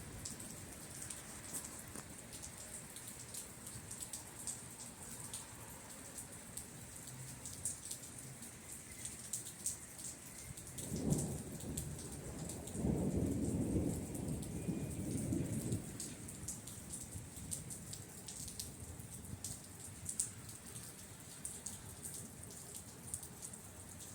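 Steady rain falling, with drops ticking on a surface throughout. About eleven seconds in, thunder rumbles for about five seconds: a short first roll, then a longer, louder one.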